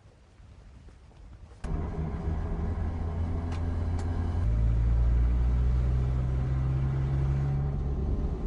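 Car engine and road rumble of a car being driven. It comes in suddenly about a second and a half in after a quiet start, steps up louder and deeper about halfway through, then runs on steadily.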